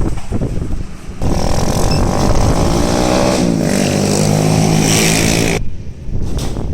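A motor vehicle engine passing close by, its pitch dropping about halfway through as it goes past; it cuts off suddenly near the end. Wind rumbles on the microphone before it.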